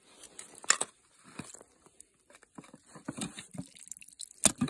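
A titanium camping pot being handled on crushed ice: its lid put on with scattered clinks and knocks, ice crunching under it, and a sharp knock about three quarters of a second in and another near the end.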